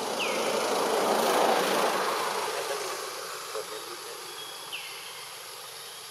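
A vehicle passing by: its noise swells over the first second and a half, then fades away. A steady high insect drone runs underneath, and two short falling chirps come, one near the start and one near the end.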